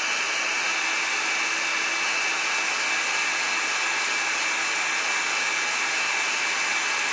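Hot-air blower running steadily with a constant high whine, blowing heat onto the phone's front glass to soften the digitizer adhesive.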